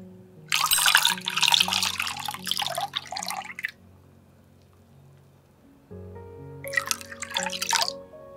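Milk poured from a measuring jug into a glass bowl of eggs, a splashing pour lasting about three seconds; a second, shorter pour of water splashes in near the end. Background music plays throughout.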